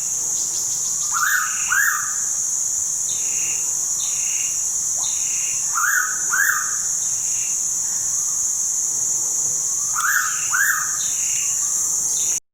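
A pitta calling three times, each call a clear two-note whistle, about four and a half seconds apart. Underneath run a steady high insect hiss and the short, regularly repeated chirps of another small bird.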